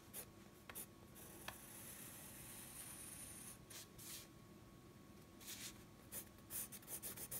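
Faint scratching of a pencil on sketchbook paper: one longer stroke in the first half, then a run of short strokes in the second half.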